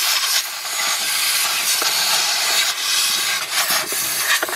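Compressed air blowing hard from a long-nozzle air gun into the AC/heater housing behind the cabin air filter, a loud steady hiss that wavers near the end. It is clearing out debris that was keeping the housing from draining.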